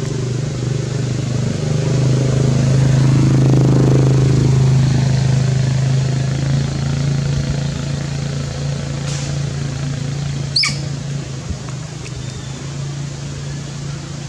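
An engine running with a steady low hum, swelling over the first few seconds and then slowly fading. A short, sharp high sound cuts in about ten seconds in.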